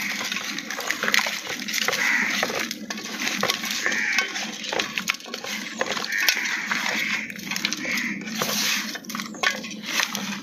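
Hands kneading and scrubbing chopped duck meat with rock salt and vinegar in a stainless steel bowl, washing off the raw smell. Wet squelching with many small clicks and clinks of meat and salt against the steel.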